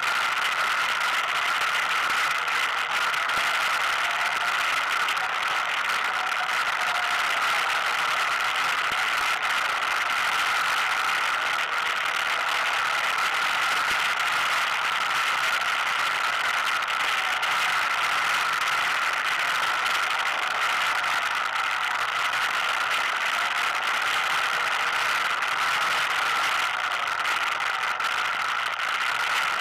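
ATV engine running steadily while riding a rough dirt road, with the vehicle's rattle and clatter. The engine pitch swells slightly a few times.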